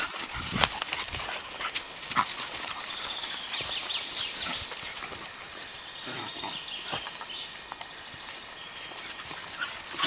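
Two dogs playing, their paws and the walker's footsteps scuffling and crackling over dry leaves and twigs on the forest floor, with scattered sharp clicks and snaps, busiest in the first half.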